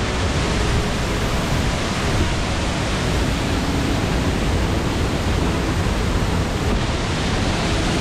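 Waterfall pouring into a pool, a loud, steady rush of falling water.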